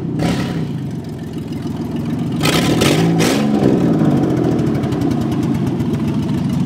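A side-by-side UTV and a minivan running, their engines steady and loud, with a louder surge about two and a half seconds in as the pitch briefly rises and falls.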